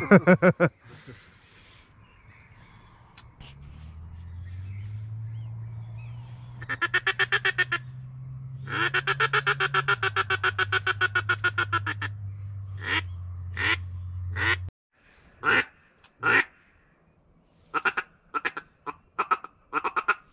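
Duck quacking: a short fast run of quacks about seven seconds in and a longer fast run of about three seconds just after, then single quacks spaced a second or so apart. A steady low hum underneath cuts off suddenly about two-thirds of the way through.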